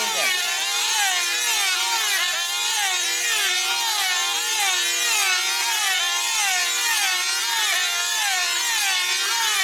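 Several F2C team-race control-line models in flight, their 2.5 cc diesel engines running flat out together. Each engine's pitch rises and falls as its model circles the pilots, about once a lap, and the overlapping sweeps blend into a continuous wavering whine.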